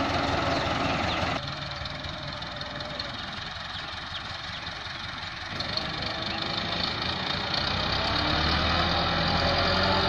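IMT 577 tractor's diesel engine running while it drags a rear blade through dung. The sound drops away abruptly about a second in, then grows louder, with the engine note rising in the last few seconds as it works under load.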